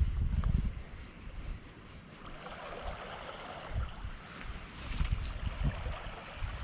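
Wind buffeting the microphone in uneven low gusts, over a hiss of sea water washing, strongest a couple of seconds in.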